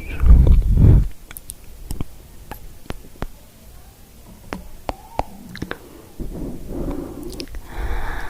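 Close-microphone ASMR sounds. For about a second there is a heavy, low rumbling rub against the microphone. It is followed by scattered sharp, wet mouth clicks, and soft rustling against the microphone comes back near the end.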